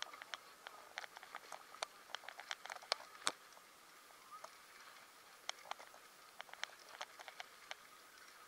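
Irregular sharp clicks and light rattles from a bicycle and its chest-mounted camera rolling over block paving. The clicks come thick and fast for the first few seconds, then thin out.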